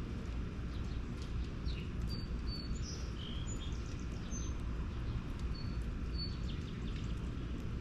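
Small birds chirping in short, high notes, a scattering of them in the middle of the stretch, over a steady low outdoor rumble.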